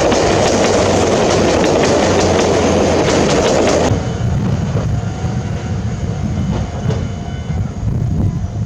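Chichibu Railway electric train passing close by, its wheels clattering over the rail joints. The sound drops suddenly about four seconds in, leaving a lower rumble.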